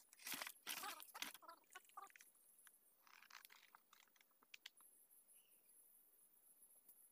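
Near silence with faint crunching and rustling in the first two seconds and again briefly about three seconds in; the chainsaw is not running.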